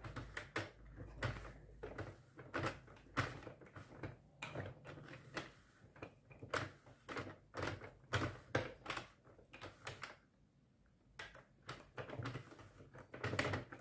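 Irregular light plastic clicks and taps as waste yarn is wrapped in front of and behind the needles of a Sentro 48-stitch knitting machine during the cast-on, with a brief pause about ten seconds in.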